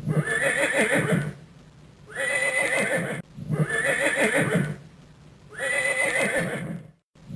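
Horse neighing: the same whinny, with a wavering pitch, repeated four times, each about a second long with short pauses between.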